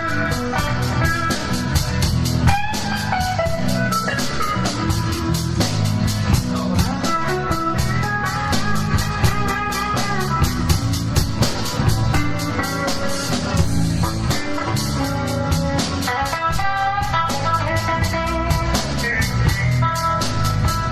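Rock band playing live: guitar lines over bass and a drum kit keeping a steady, fast beat.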